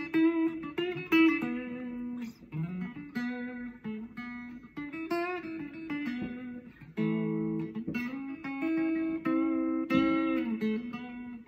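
Stratocaster-style electric guitar playing a slow instrumental melody of plucked single notes and chords, with notes left to ring.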